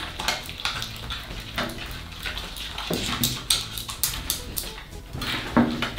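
Glue-and-borax slime being stirred with plastic spatulas in glass bowls: irregular wet squelches with the clicks and scrapes of the spatulas against the glass.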